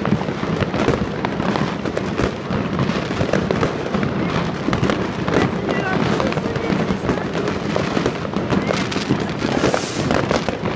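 Fireworks and firecrackers going off all around at once: a dense, unbroken barrage of crackles and bangs.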